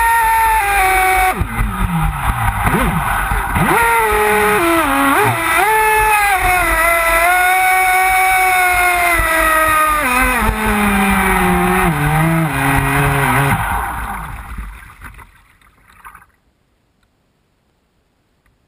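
RC speedboat's brushless electric motor whining at speed over the rush of water spray, its pitch falling and swooping as the throttle changes. It winds down and fades to near silence a little past two-thirds of the way in as the boat comes off the throttle and stops.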